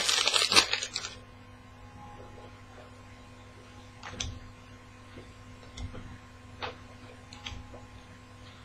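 Trading-card pack wrapper crinkling for about the first second, then a few soft clicks and taps of cards being handled, over a steady electrical hum.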